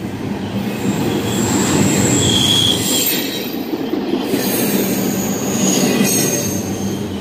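Double-stack intermodal freight cars rolling past close by: a steady rumble of steel wheels on rail, with high-pitched wheel squeals coming and going a few times.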